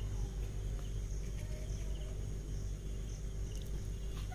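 Steady background noise: a low hum with a thin, high-pitched steady whine above it, and a few faint clicks.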